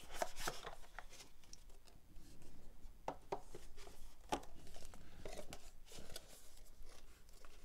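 Cardboard packaging being handled: a white box folded shut and its pieces set down, with several light taps and rustles, and paper packaging shuffled about two-thirds of the way in.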